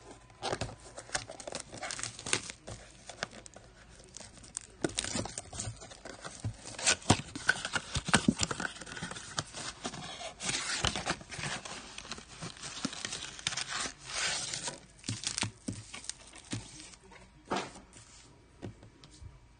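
A 2019-20 Panini Prizm NBA blaster box being torn open by hand: its cardboard and wrapping crinkle and tear in several bursts, the longest in the middle, with sharp clicks and knocks as it is handled and the card packs are slid out near the end.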